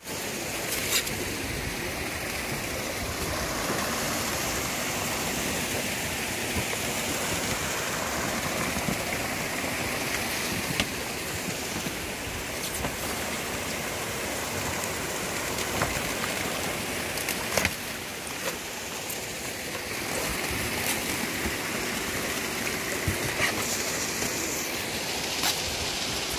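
Paddlewheel aerators churning the water of a shrimp pond: a steady splashing rush, with a few sharp knocks here and there.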